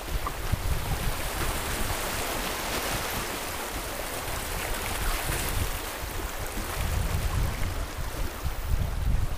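Water of a small, shallow river rapid rushing steadily over rocks, with wind buffeting the microphone.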